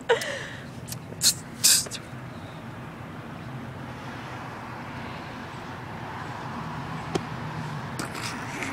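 Outdoor traffic noise: a steady low rumble with a vehicle passing, swelling gently and fading over several seconds. Two short hissy noises come about a second in.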